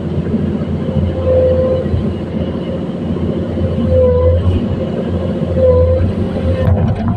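Komatsu PC210-10 excavator's diesel engine running steadily under working load. A whine swells and fades about three times.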